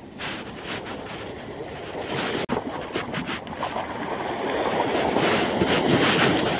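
Wind buffeting the phone's microphone over small sea waves washing against a rocky shore, growing louder in the second half, with a brief drop-out about two and a half seconds in.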